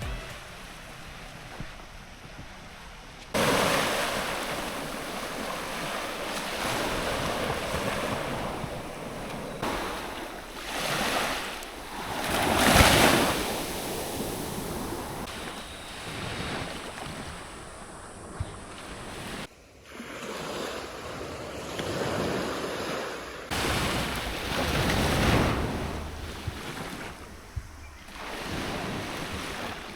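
Ocean waves washing onto the shore, swelling and ebbing, with the loudest surge about halfway through, and wind buffeting the microphone. The sound changes abruptly a few times, as between separate clips.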